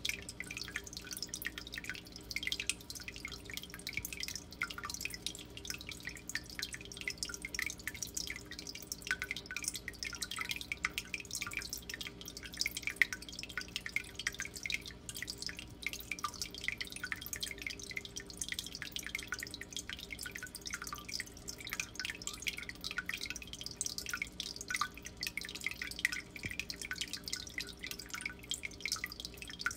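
Water trickling and dripping into an aquarium: a dense, unbroken patter of small drips, with a faint steady hum underneath.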